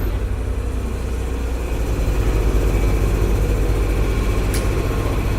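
Paris Métro train noise: a steady low rumble with a faint motor hum, and one sharp click about four and a half seconds in.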